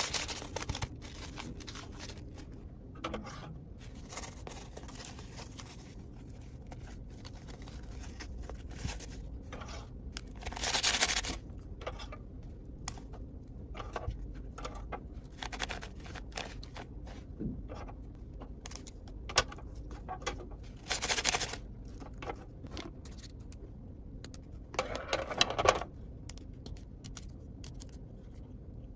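Toy pieces and packaging being handled: scattered light scrapes and clicks, with a few longer rustling, tearing sounds about ten, twenty-one and twenty-five seconds in.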